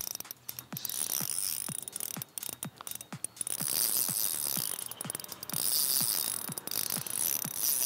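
Spinning reel being worked on a fishing rod, its mechanism giving a run of irregular clicks, a few a second.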